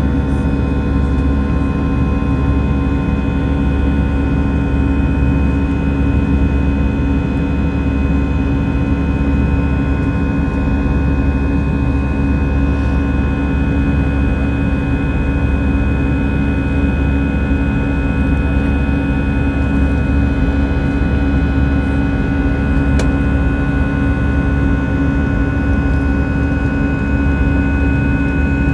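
Airliner cabin noise during the climb after takeoff: the engines' steady drone, with a strong low rumble and several steady high tones held over it.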